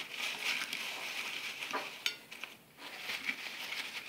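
Paper napkin rustling and crinkling as hands press and fold it over freshly fried cauliflower pakoras to blot off the oil, with a sharp click about two seconds in.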